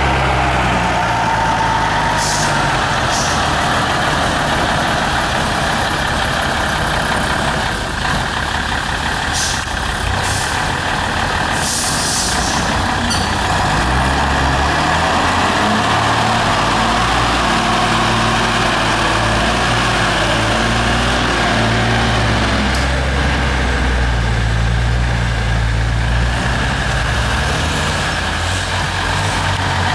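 Mercedes-Benz 1519 truck's diesel engine working hard as it climbs a muddy slope, its pitch rising and falling with the throttle. A few short hissing bursts come a couple of seconds in and again around ten to twelve seconds in.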